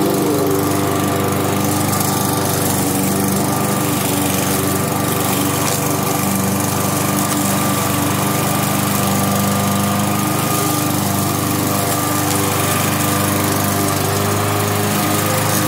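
Cub Cadet SC300HW self-propelled walk-behind lawn mower's gas engine running at a steady speed, a constant drone with no change in pitch.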